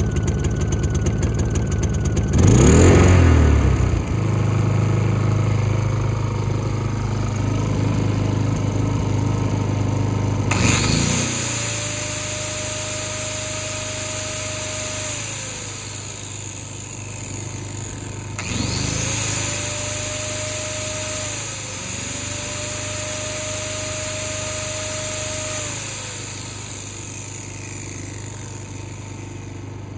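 Honda EU2000i inverter generator running steadily, briefly surging about three seconds in; it now runs well after a no-start from stale gas was fixed along with an oil change and new spark plug. About ten seconds in, a corded angle grinder powered by the generator starts up with a high whine, and a tone rises, holds and falls away twice as the grinder runs.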